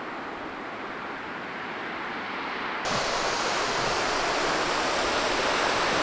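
Steady rushing of a waterfall, dull and softer at first, then suddenly louder and brighter about three seconds in.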